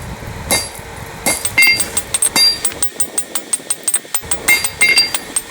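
Hand hammer striking the hot railroad spike on a Peter Wright anvil, drawing out the blade for length: a series of ringing metal-on-metal blows, with a quicker run of lighter strikes in the middle.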